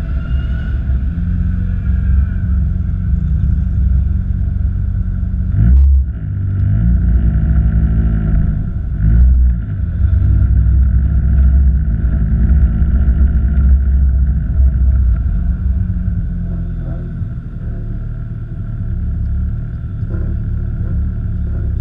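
Lotus Exige S240's supercharged four-cylinder engine running at low revs as the car drives slowly, with the engine note falling and rising around eight to ten seconds in and a single sharp click about six seconds in.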